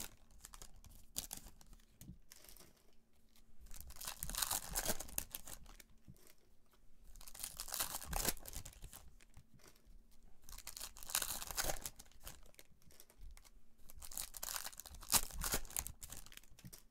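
Foil trading-card pack wrappers being torn open and crinkled, in repeated bursts of crackling about three to four seconds apart.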